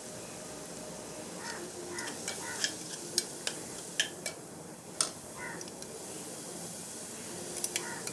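Spiced masala sizzling in a pressure cooker pot while a metal spoon stirs it, with sharp clicks and scrapes of the spoon against the pot, most of them between about two and five seconds in.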